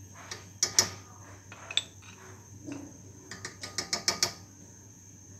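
A metal spoon clicking and scraping against a glass bowl as cornflour is scraped out into a pan of milk. There are a few separate sharp clicks, then a quick run of clicks about three to four seconds in.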